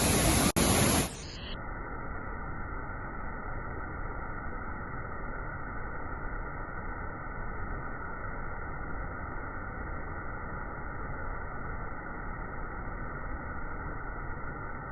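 Steady rushing noise of a waterfall, dull with no high end. For the first second and a half it is louder and fuller.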